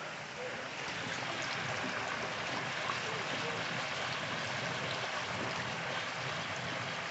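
Hot oil in a turkey fryer pot bubbling and sizzling steadily around a whole turkey that has just been lowered in.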